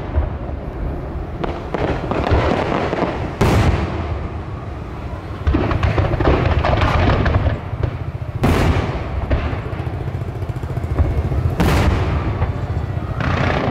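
Aerial fireworks shells bursting over a continuous low rumble and crackle of the display. Three sharp bangs stand out, a few seconds apart.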